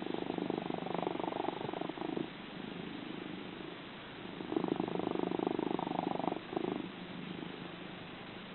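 Orange tabby cat purring, a fast rattling purr that swells loud twice, with quieter purring between the swells.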